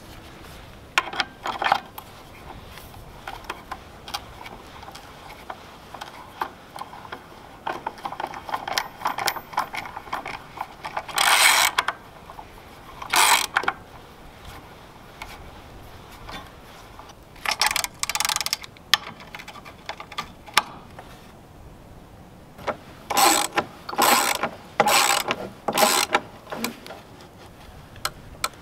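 Socket ratchet wrench clicking in short bursts, a few seconds apart, as it is worked back and forth to drive a lag bolt through an iron hinge-pin plate into a wooden post.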